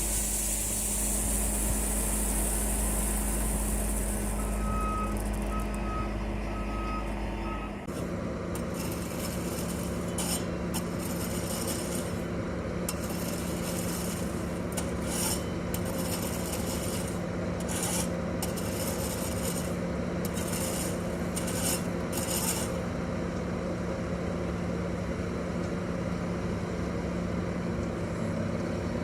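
Heavy diesel construction machinery running steadily, with a backup alarm beeping a few times about five seconds in. From about eight seconds in a rasping, hissing scrape comes and goes for some fifteen seconds over the engine.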